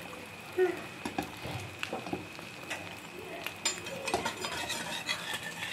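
Egg omelette frying in oil in a non-stick pan, a steady low sizzle with scattered small clicks and pops, the sharpest about half a second in.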